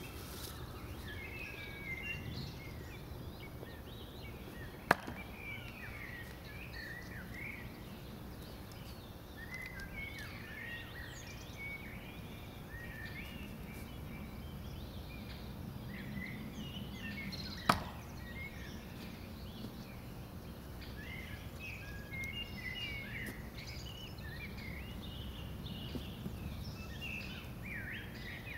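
Two sharp impacts of steel throwing knives hitting a target, about thirteen seconds apart, over a steady background of small birds chirping.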